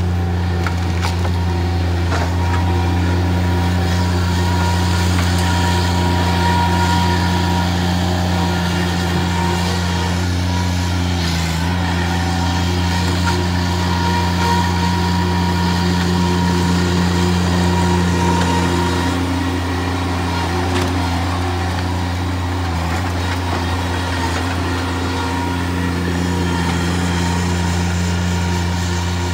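Bobcat MT100 stand-on mini track loader's diesel engine running steadily under hydraulic load as its grapple lifts demolition debris, easing off slightly about two-thirds of the way through.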